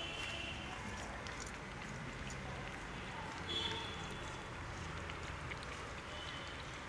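Puppies eating from a steel bowl: faint chewing and lapping, with a few short, high chirps: one at the start, a clearer one about three and a half seconds in, and one near the end.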